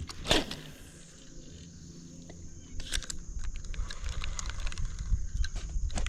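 A single quick swish of a fishing cast about a third of a second in. From about three seconds in, a run of light, irregular clicks and knocks from the reel and tackle as a topwater popper is worked back.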